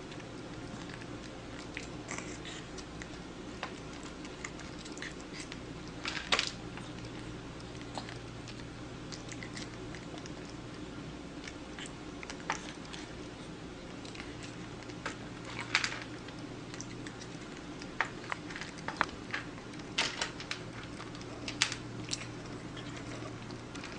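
A cat chewing and biting food, heard as irregular short sharp clicks over a steady low hum.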